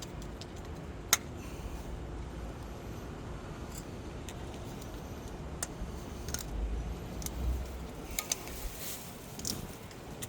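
Scattered sharp metallic clicks and clinks of hand tools and suspension parts being handled, the sharpest about a second in and a cluster in the second half, over a low steady rumble.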